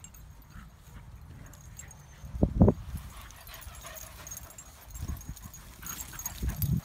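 Dogs romping on grass close to the phone: short, muffled low thumps and scuffles, the loudest about two and a half seconds in and a couple more near the end.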